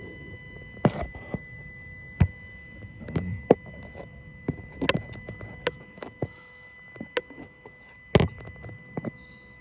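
Handling noise: irregular light clicks and knocks, with the loudest about a second in and about eight seconds in, over faint steady high-pitched tones.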